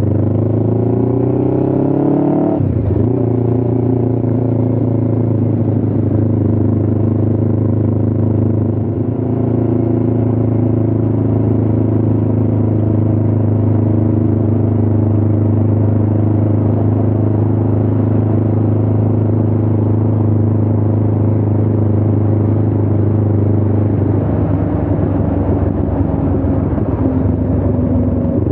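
Motorcycle engine under way: the revs climb for about two and a half seconds, drop sharply with a gear change, then hold steady at cruising speed, wavering a little near the end.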